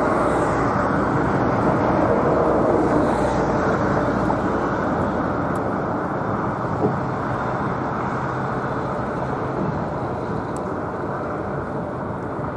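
Jet engine noise from a landing Boeing 777-300ER's GE90 engines: a steady rushing noise that slowly fades.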